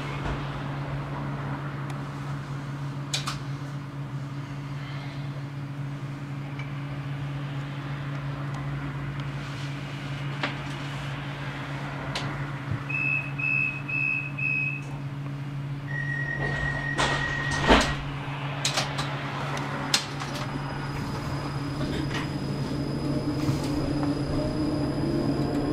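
Tram interior with a steady low electrical hum from the tram's onboard equipment. About halfway through, a run of five short high beeps is followed by a longer single beep and a couple of knocks. Near the end a rising motor whine builds as the tram gets moving.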